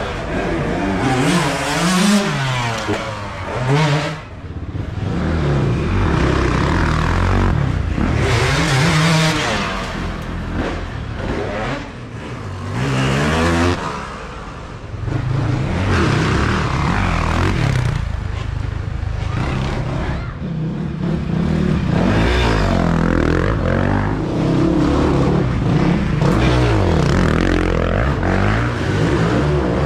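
Dirt bike engines revving up and down as riders ride through, the engine pitch rising and falling over and over, inside a metal-sided barn.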